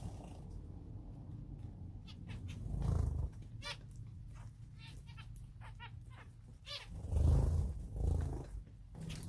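Small cage finches calling, many short chirps in scattered quick series. Low rumbles about 3 s and 7 s in are the loudest sounds.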